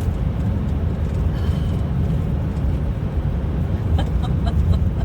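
Steady low rumble of a car on the move, heard from inside the cabin, with a quick run of four or five small clicks about four seconds in.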